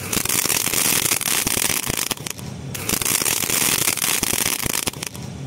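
Ground-fountain firework hissing as it sprays sparks, with crackling pops mixed in. The rush dips briefly midway and dies away near the end, where it gives only a little crackling.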